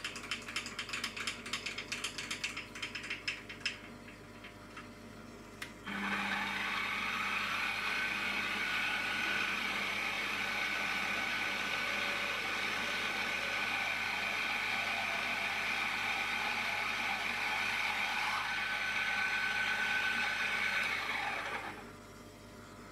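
Mini milling machine's spindle running a twist drill through a metal block held in a vise: the motor starts suddenly about six seconds in, runs steadily with a high whine while the drill cuts, and stops near the end. Before it starts there is a quick run of clicks lasting a few seconds.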